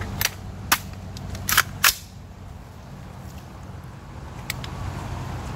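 Four shots from a 5.56 AR pistol with a 7.5-inch barrel, fired in under two seconds. The firing then stops: the pistol has jammed with a double feed.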